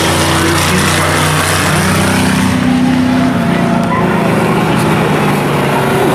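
Enduro stock car engines running around the track, a loud, steady drone with several engine pitches over a noisy haze.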